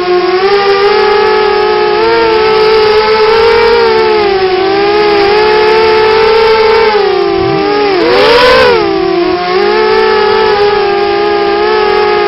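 Coptergiest CGX 250 quadcopter's brushless motors whining, the pitch wavering up and down with the throttle. About eight seconds in, the pitch dips and then surges with a brief louder rush.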